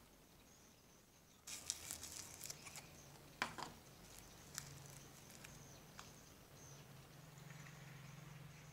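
Sticky slime with small foam beads squeezed and pulled between fingers: a run of small wet crackles and clicks starting about a second and a half in, one sharper click a couple of seconds later, then a few scattered soft clicks. A faint steady low hum sits underneath in the second half.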